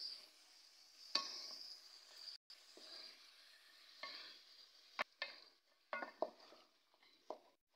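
A spatula stirring chopped cauliflower and potatoes in a pot, with several sharp scrapes and knocks against the pan, the loudest about five seconds in. A faint sizzle of the vegetables frying in ghee runs underneath.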